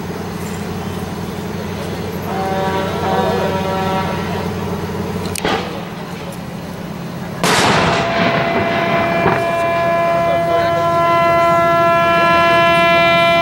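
Tugboat horns blowing over a low engine drone: a short blast about two seconds in, then a long steady blast from about eight seconds to the end. A welcoming cannon is fired between them, a sharp crack about five and a half seconds in, then a louder bang at about seven and a half seconds.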